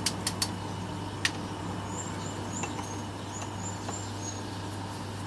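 Steady low hum with a few sharp clicks in the first second or so, then a quick series of short, high bird chirps lasting about two seconds.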